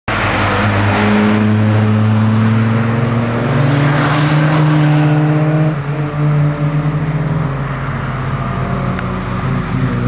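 Several cars driving past at speed, their engines loud as they come close. They go by about five to six seconds in, and the engine sound then drops as they pull away.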